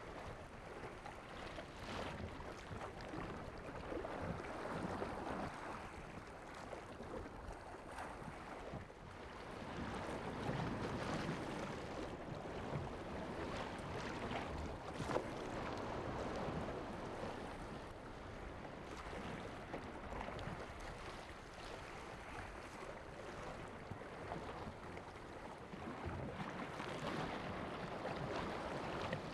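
Sea water lapping and washing with wind, swelling and easing every few seconds, with one sharp click about halfway through.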